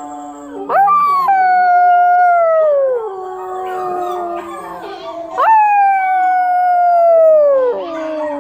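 Canine howling: two long howls, each starting with a quick rise in pitch, held for about two seconds and then sliding down, over a lower, quieter held howl.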